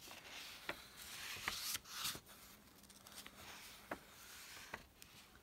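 Brittle old pages of an 1856 cookbook being turned by hand: several dry paper rustles with small sharp ticks and crackles among them.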